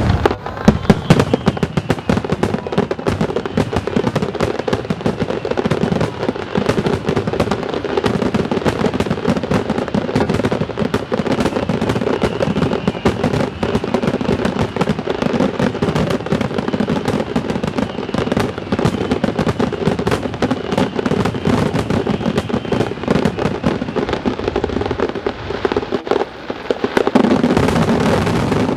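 Aerial fireworks going off in a dense, continuous barrage of bangs and crackling, with hardly a gap between bursts.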